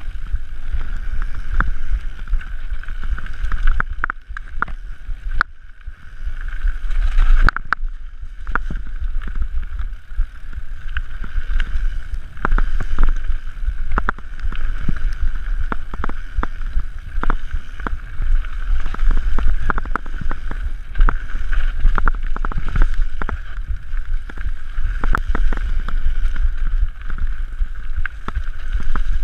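Mountain bike ridden fast down a dirt forest trail, heard from a camera on the handlebars: a constant rumble of wind and tyre noise with frequent sharp knocks and rattles as the bike goes over bumps and roots.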